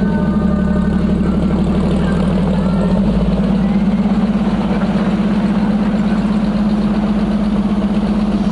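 AMC 4.2-litre straight-six engine of a 1972 Jeep CJ5 running steadily at low revs as the Jeep moves slowly over a dirt road, a steady drone whose low end shifts slightly about three seconds in.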